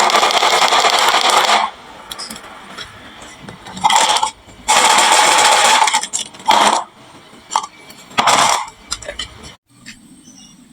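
Marbles rolling down a wooden marble-run slope with a loud, continuous rattle for about a second and a half. Then separate bursts of clatter and sharp clicks as more marbles run down and drop into the toy trucks.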